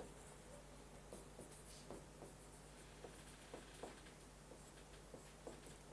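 Faint, irregular taps and strokes of hand-writing on a blackboard, over a low steady hum.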